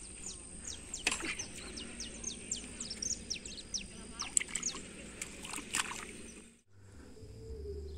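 Outdoor ambience of birds chirping in many quick, falling notes over a steady high-pitched tone. The sound cuts off abruptly near the end and a quieter background takes over.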